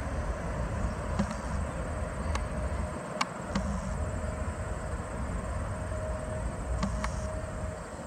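Low rumble of a twin-engine jet airliner rolling down the runway, heard from afar and mixed with wind on the microphone. Insects keep up a faint steady buzz, and a few sharp clicks stand out.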